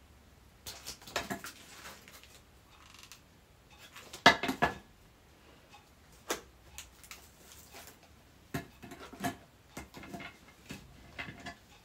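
Light clicks, taps and rustles of a plastic basket and craft items being handled, with the loudest knock about four seconds in.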